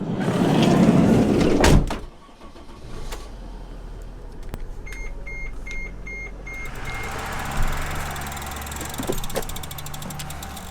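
Getting into a car: rustling and a door shutting with a thump about two seconds in, then the engine running with a low hum. An electronic warning chime beeps about six times in the middle, and the engine and road noise rise near the end.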